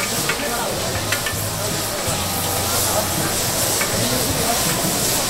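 Sauce-coated squid pieces sizzling on a flat griddle while a metal spatula scrapes and tosses them, with a few sharp clicks of the blade against the plate.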